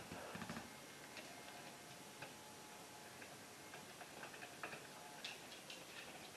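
Faint, scattered small clicks as a mounting screw is fitted by hand into the top strap of a duplex USB outlet.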